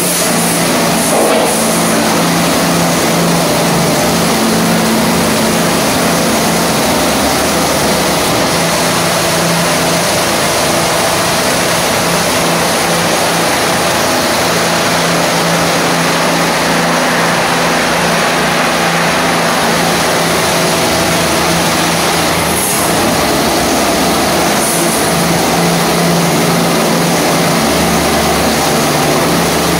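PDQ ProTouch Tandem car wash running: high-pressure water spraying against the SUV's sides and wheels and spinning foam brushes, over a steady hum from the wash machinery. The noise stays loud and even throughout.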